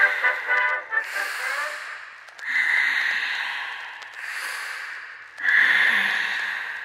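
Two sudden breathy hisses, one about two and a half seconds in and one a little past five seconds, each fading away over a couple of seconds. A brass-like music tail dies out in the first second.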